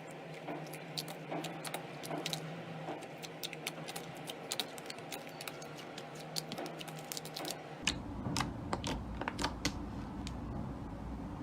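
Slime being squeezed and poked, giving off rapid, irregular small pops and clicks. About eight seconds in, a low hum comes in underneath.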